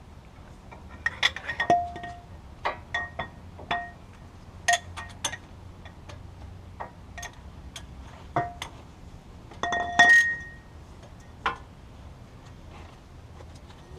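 Steel hand tools clinking and tapping against metal in an irregular series of sharp clinks, several ringing briefly, the loudest about ten seconds in.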